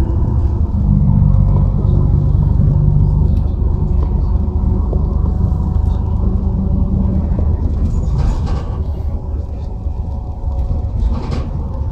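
Steady low rumble of a road vehicle in motion, with two brief rushes of noise near the end.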